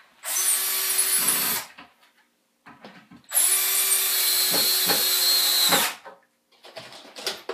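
Cordless drill running into a wooden stud frame in two steady runs: a short one at the start, then a longer one of about two and a half seconds from about three seconds in.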